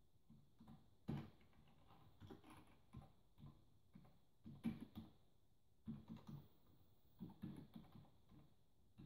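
Faint typing on a computer keyboard: short irregular clusters of keystrokes with pauses between them.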